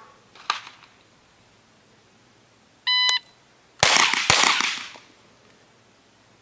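A shot timer's start beep, then about a second later two quick shots from a 9mm pistol-caliber carbine, roughly half a second apart, each ringing out briefly.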